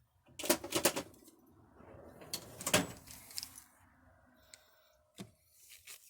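Pliers and small metal injector parts clicking and scraping as a diesel fuel injector is taken apart: a quick run of clicks about half a second in, scraping with a sharp click near three seconds, and a few light clicks near the end.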